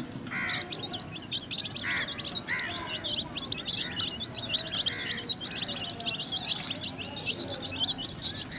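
Several young chicks peeping rapidly and continuously in high, quick chirps, with a lower arched call coming about once a second through the first half.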